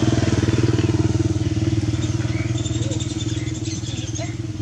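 A small engine running steadily with an even, fast rhythm, slowly getting quieter, with faint high chirps over it in the second half.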